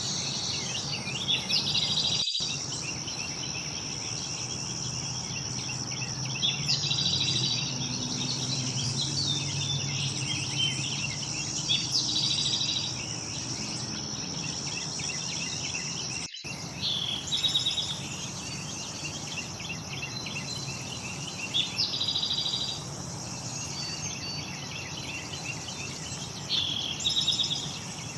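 Outdoor ambience of songbirds chirping, one bird repeating a short song phrase about every five seconds, over a steady high-pitched insect drone.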